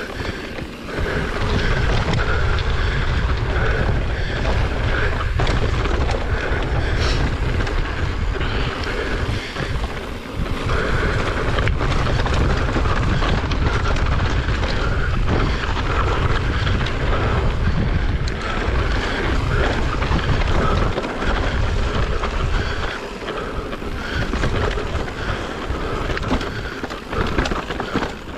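Wind buffeting the action-camera microphone while a mountain bike descends dirt singletrack, tyres rumbling and the bike rattling with many small knocks over rough ground. The rumble eases briefly about three-quarters through.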